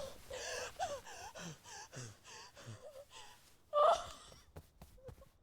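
A woman gasping and whimpering in panic, in quick short breaths, with one louder gasp about four seconds in.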